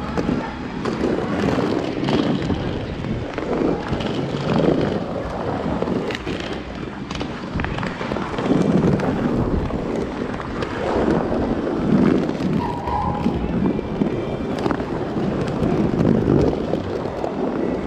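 Quad roller skates rolling over a wooden rink floor: a continuous rumble of wheels that swells and eases unevenly, with wind noise on the moving microphone.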